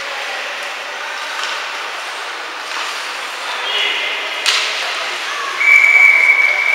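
Ice rink in play: a steady din of voices, a sharp knock about four and a half seconds in, then a referee's whistle blown in one long steady blast near the end.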